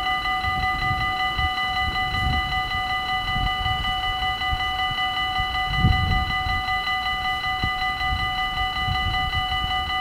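Level crossing warning bell ringing steadily in rapid, even strokes while the barriers are down, the warning that a train is approaching. A low rumble runs underneath, swelling briefly about six seconds in.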